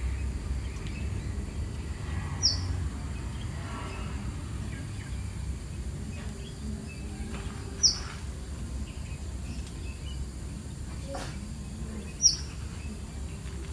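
A bird giving a single short, high chirp three times, a few seconds apart, over a steady low background rumble.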